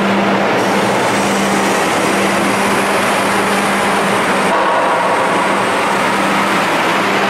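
Terberg terminal tractor's diesel engine running as it tows a loaded roll trailer across a ro-ro ship's enclosed steel vehicle deck: a steady, loud mechanical din with a constant low hum.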